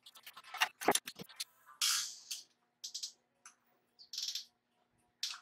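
Irregular metal clicks and scrapes of an adjustable wrench working a threaded steel pipe elbow on a refrigerator compressor's port.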